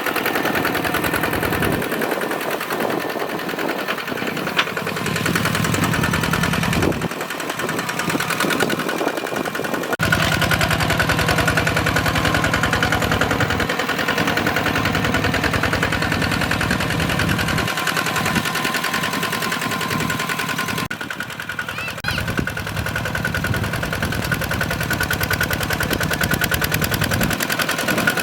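Single-cylinder diesel engine of a two-wheel hand tractor running with a fast, even chugging. Its level and tone change abruptly several times.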